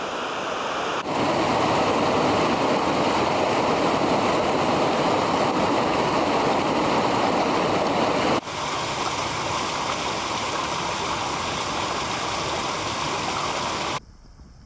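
Whitewater of a boulder-strewn mountain creek rushing steadily. The sound steps up sharply about a second in, changes slightly after about eight seconds, and drops away suddenly near the end.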